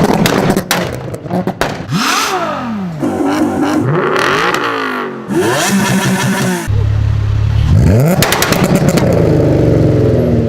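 Volkswagen Golf 3 with a swapped-in Golf 4 2.8-litre V6 engine, revved hard several times. The pitch climbs and falls with each rev, and sharp exhaust pops and bangs come as the revs drop. Near the end the engine settles into a steadier running note.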